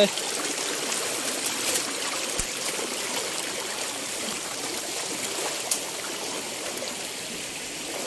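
Shallow forest stream running over rocks, a steady rushing of water with a few faint clicks.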